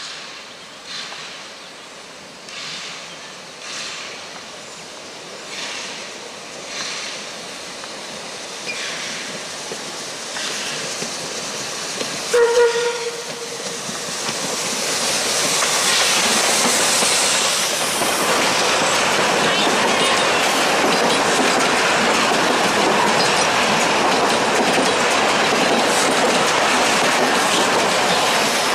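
Narrow-gauge steam locomotive, Puffing Billy's NA-class 12A, approaching with slow, regular exhaust chuffs about once a second. About twelve seconds in it gives one short whistle blast. Then its passenger carriages roll past close by with a loud, steady clatter of wheels on the rails.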